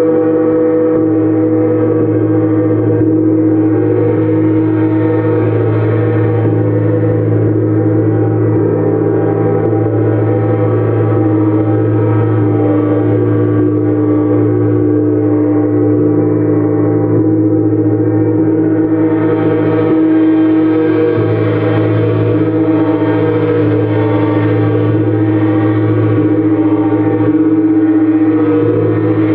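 Gongs played continuously in a gong bath: a steady, sustained wash of many overlapping ringing tones, with no pauses.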